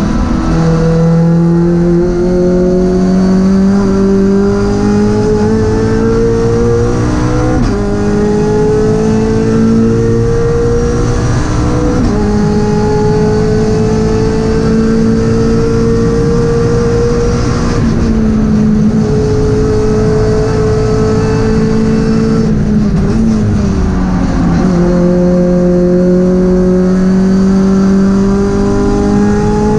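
Toyota GT86 CS Cup race car's 2.0-litre flat-four engine heard from inside the cockpit, pulling hard with its pitch climbing steadily through the gears. The pitch snaps down twice in the first half with quick upshifts of the sequential gearbox, steps down in the later part as the driver slows and shifts down, then climbs again under full acceleration near the end.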